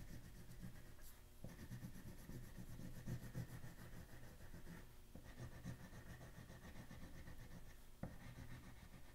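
Light blue oil pastel rubbed back and forth on paper while shading in a small area: a faint, steady scratchy rubbing with an occasional sharper tick of the stick on the page.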